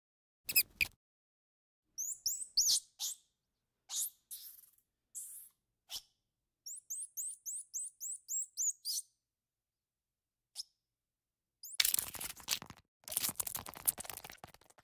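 High-pitched animal squeaks and chirps, each sweeping downward. They come scattered at first, then as a quick run of about five chirps a second. Near the end come two bursts of scratchy noise.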